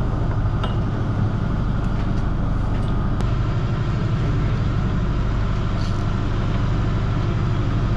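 A fishing boat's onboard engine running with a steady low hum.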